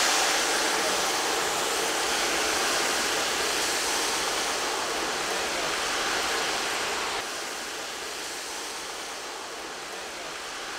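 Masala-coated anchovies (kozhuva) deep-frying in a wok of hot oil, a steady loud sizzle as the fish go in. It eases gradually and drops a step about seven seconds in as the frying settles; the fish are not yet crisp.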